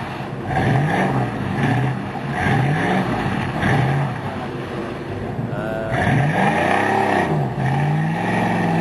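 Truck engine revving up and down in short pushes about once a second, then one longer rev and a steady held pitch near the end, as a stuck off-road truck is worked out of a mud hole.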